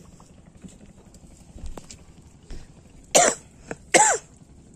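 A man coughing twice, about three seconds in and again just under a second later. A few faint knocks come before the coughs.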